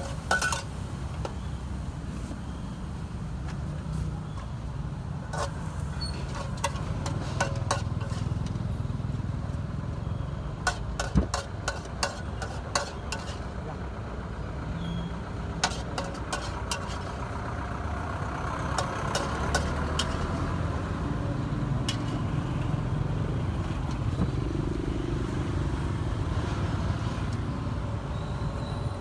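Metal ladle-spatula repeatedly clanking and scraping against a wok during stir-frying, with a steady rumble of street traffic underneath.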